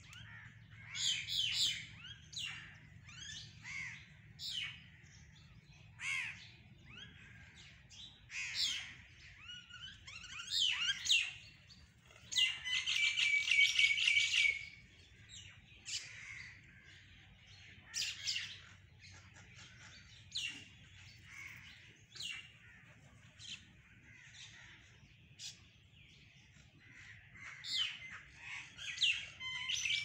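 A flock of mynas calling while feeding: short sharp notes and notes that slide up and down in pitch, scattered throughout. About halfway through comes a fast run of repeated notes lasting about two seconds, and a shorter run comes near the end.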